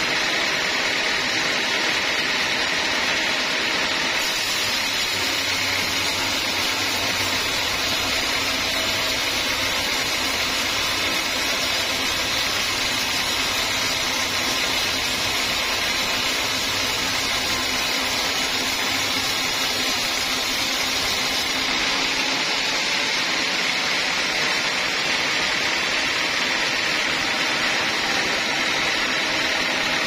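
Homemade band sawmill running steadily, its blade sawing through a hard teak log.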